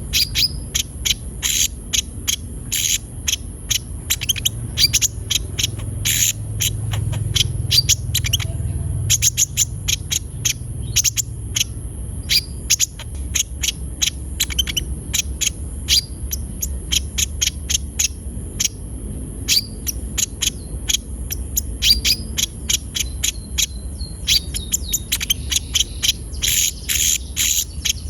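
Konin sunbird singing: a fast, uneven string of sharp, high chips, bunched into quick runs, over a steady high-pitched hiss.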